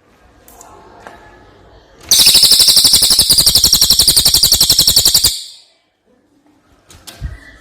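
Brown cililin songbird giving a loud, fast trill of rapidly repeated high notes, lasting about three seconds, with a few faint calls before it.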